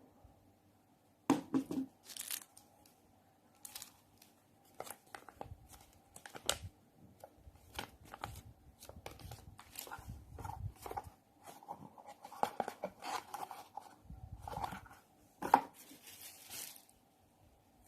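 Irregular handling noises: sharp clicks and short crinkling, rustling sounds, over a faint steady hum.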